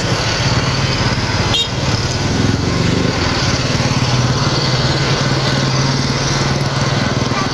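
Motorcycle engine running steadily while riding, with wind noise over the microphone. A short click about a second and a half in.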